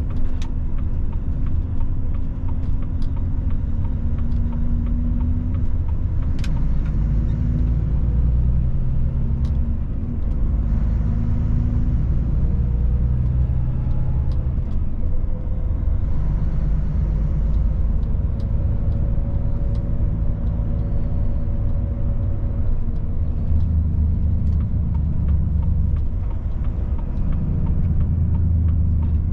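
Volvo FH truck's diesel engine running, heard from inside the cab as the truck drives slowly. The engine note shifts up and down a few times over a steady low rumble, with a few scattered sharp clicks.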